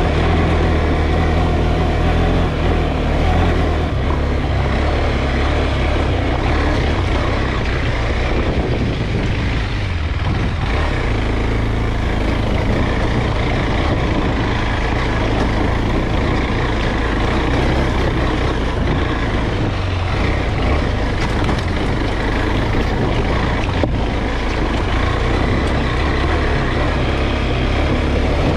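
KTM 390 Adventure's single-cylinder engine running steadily at low trail speed over loose, rocky ground, with a brief drop in the engine note about ten seconds in, under a wide noise of tyres and wind.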